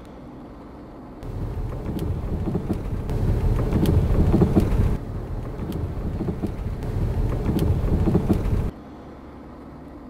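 Road rumble inside a moving car's cabin with irregular sharp knocks from the front end, the knocking suspected to come from the steering rack: the speaker says a worn tie-rod joint or a worn bushing may cause play and knocks in the rack. It starts about a second in and cuts off suddenly near the end.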